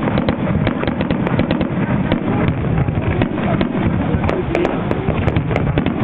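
Fireworks exploding in rapid succession: a dense, continuous crackling and popping over a low rumble of bursts.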